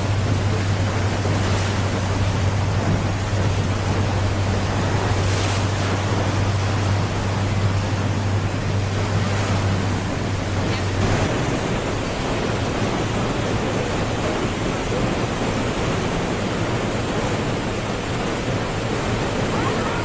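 Steady rush of water from Niagara Falls, with a low hum underneath that drops away about eleven seconds in.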